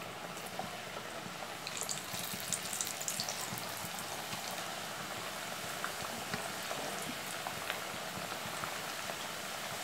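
Thattai (flat rice-flour crackers) deep-frying in hot oil in an aluminium kadai: steady sizzling with fine crackling pops, sharper crackles between about two and three and a half seconds in.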